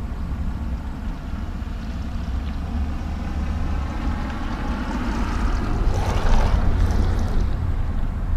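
Street traffic noise with wind rumbling on the microphone. A vehicle passes, swelling to its loudest about six seconds in and fading a second or so later.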